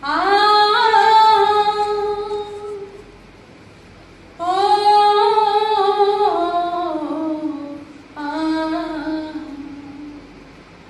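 A woman singing unaccompanied in three long, drawn-out phrases. Each holds its notes, slides between them and falls away at the end.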